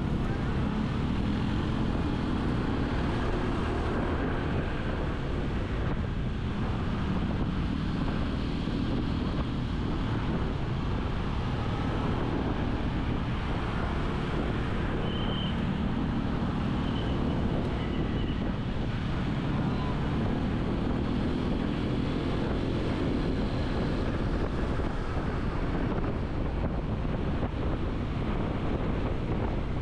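Steady rumble of a vehicle moving along a road, with traffic noise and wind buffeting the microphone.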